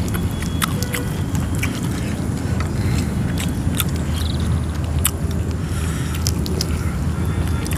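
A person chewing and biting food close to the microphone, with scattered short crunching clicks over a steady low hum.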